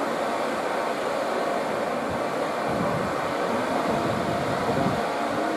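Steady, even rushing background noise, like a fan or air handling, with no distinct knocks or calls standing out.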